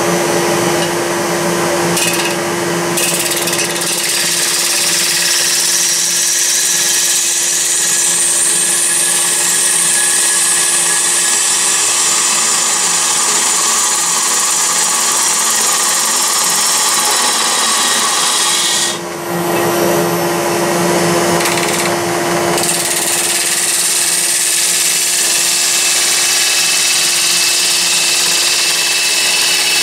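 Walnut being turned on a wood lathe: a turning chisel cutting the spinning wood makes a continuous high hiss over the lathe motor's steady hum. The cutting stops briefly about two seconds in and again around nineteen seconds in, leaving just the hum.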